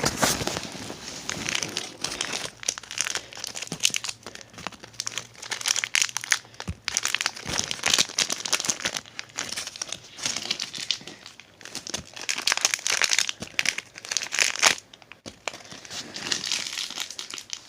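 Plastic candy bag crinkling and rustling in uneven spells as gummy candies are rummaged through and sorted by hand, with many quick crackles.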